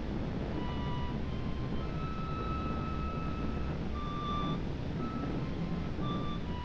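Early sound-film soundtrack: a steady low rumble and hiss under a slow, sparse melody of single held high notes that step up and down in pitch, with short pauses between them.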